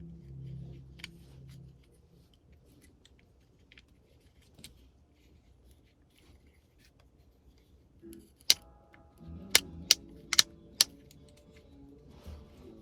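Soft background music fades out in the first two seconds. After some faint ticking, a run of five sharp clicks about two-thirds of the way in: small plastic and metal parts of a headlight combination switch being handled and snapped together.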